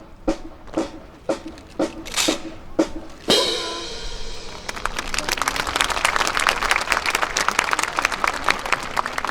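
A run of sharp clacks about two a second, a loud crash with ringing a little over three seconds in, then audience applause for the rest.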